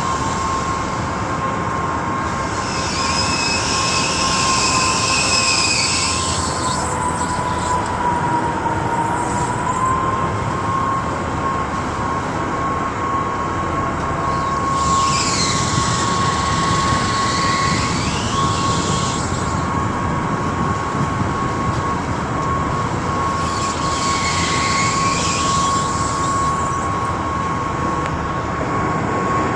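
Tugboat machinery running loudly, with a steady high whine throughout that dips briefly about eight seconds in. Squealing sounds come three times, around three, fifteen and twenty-four seconds in.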